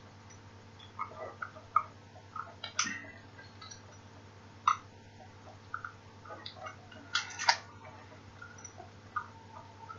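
Scattered small clicks and light rustles of a pocket watch and its pouch being handled, with the sharpest clicks about three seconds in, near five seconds, and twice around seven seconds.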